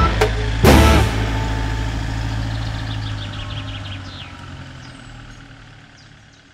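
A Rapido motorhome towing a twin-axle box trailer drives away, its engine hum fading steadily over several seconds. Birds chirp faintly near the end.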